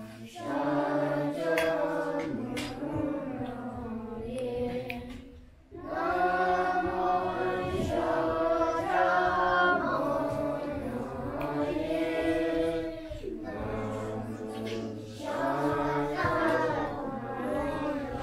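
A group of voices singing a chant-like devotional song in unison, in long phrases with a short break about five and a half seconds in.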